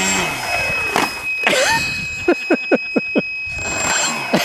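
An electric RC car's motor whirs up and down in pitch as it is throttled. A run of short, quick bursts of laughter follows.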